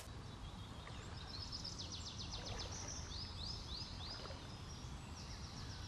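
A songbird singing a few quick phrases of short, rapidly repeated high notes over steady low outdoor background noise.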